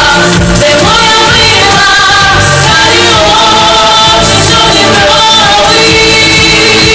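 Women's vocal ensemble singing in several-part harmony into stage microphones, the voices holding long notes with music underneath.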